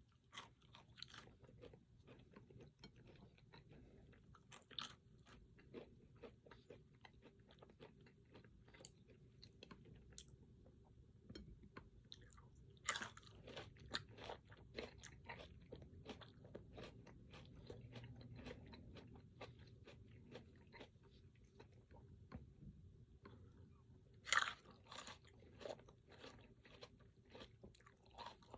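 Close-miked eating: a person biting and chewing crunchy food, a constant patter of small crunches, with two louder crunchy bites, one about halfway through and one near the end.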